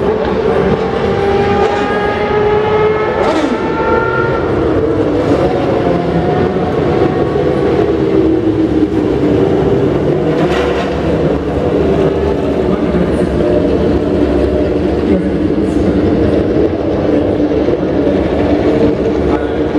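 Engines of many classic racing cars and motorcycles running together at parade pace, a dense steady drone. Engines climb in pitch in the first few seconds, and one drops slowly in pitch later on.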